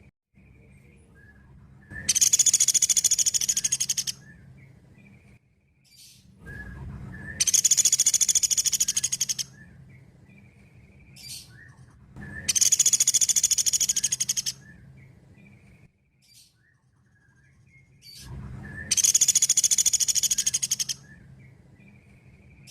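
Pelatuk beras calling: four loud, high-pitched rapid trills, each lasting about two seconds and a few seconds apart, with soft short call notes in between.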